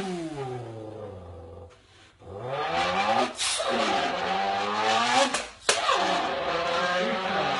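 A man imitating a car engine with his voice into an empty can: a loud rev that falls away, a brief pause, then revs that climb and drop again and again like an engine working up through the gears, with a sharp pop near the end.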